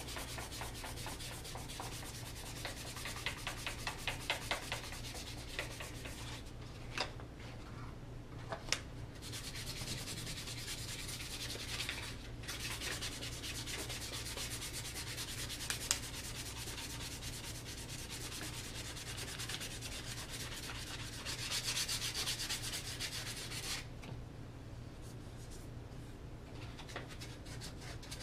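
Sandpaper, 220 grit, rubbed by hand over a wooden gun stock in quick back-and-forth strokes, with a few short pauses. It is smoothing a glued break and its putty fill down flush with the wood.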